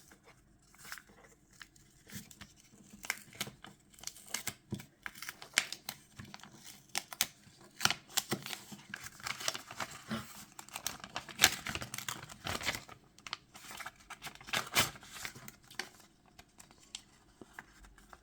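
A small parcel being torn open and its packaging crinkled by hand: irregular tearing and rustling crackles, busiest in the middle stretch.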